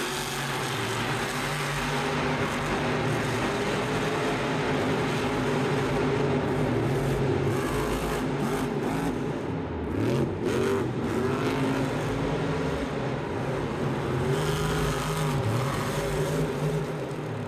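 Monster truck's supercharged V8 running hard in an arena, its pitch dipping and climbing back as the throttle is lifted and reapplied, about halfway through and again near the end.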